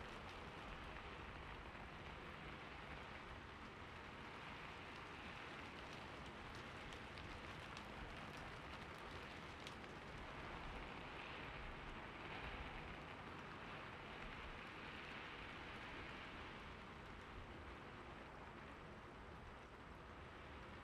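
Fountain water splashing steadily, an even watery hiss with scattered sharp drip-like ticks.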